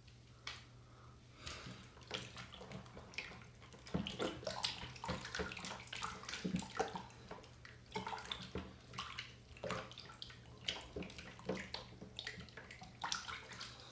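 Water splashing in irregular bursts as hands are rinsed under running water, over a steady low room hum.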